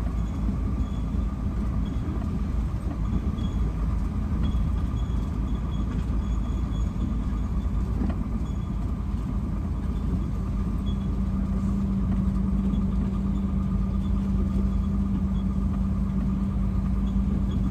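Truck's diesel engine running as it rolls slowly, heard from inside the cab: a steady low rumble, with a steady hum that grows stronger about ten seconds in.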